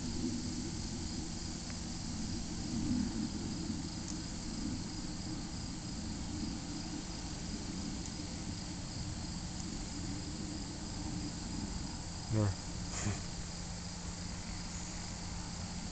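Insects chirping in a steady, high, pulsing chirr over a low steady hum. A brief louder sound cuts in about twelve seconds in.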